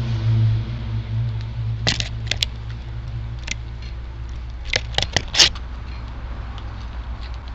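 Strong wind buffeting the microphone in a steady low rumble, with a few short, sharp high ticks about two seconds in and a quick cluster of them around five seconds.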